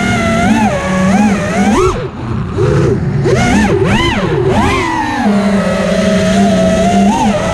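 FPV quadcopter's electric motors and propellers whining, the pitch swooping up and down quickly with the throttle, then holding steadier from about five seconds in.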